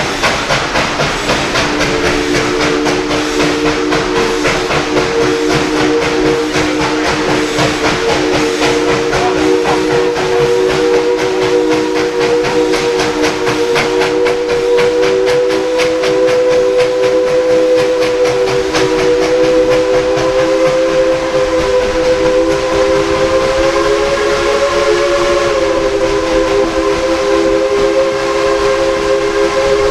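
Steam locomotive's chime whistle blowing one long, steady three-note chord, its pitch drifting slightly upward, over the rapid beat of the working locomotive's exhaust.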